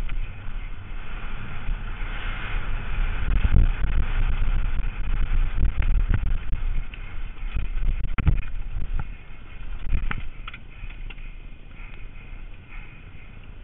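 Downhill mountain bike ridden fast over loose sandy dirt: a steady rumble of wind on the camera microphone and tyres on the trail, with several sharp clacks of the bike hitting bumps, easing off in the last few seconds.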